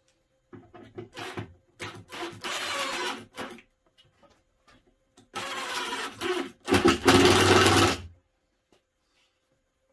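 Cordless drill driving screws through a wooden batten into a furniture-board panel. A few short trigger pulls, then a run of about two seconds, then a longer drive that gets louder in its last second as the screw goes home.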